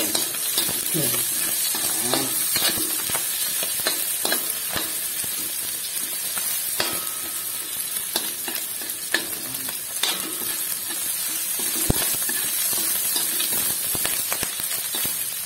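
Garlic and onion sizzling steadily in hot oil in a wok, stirred with a metal spatula that clicks and scrapes against the pan again and again.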